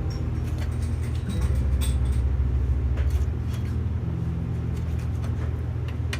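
A steady low mechanical hum, louder for a couple of seconds starting about a second and a half in, with a few faint clicks and taps over it.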